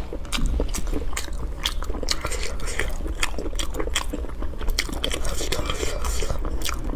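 A person chewing and biting food with the mouth closed, with many sharp crunchy clicks coming irregularly throughout.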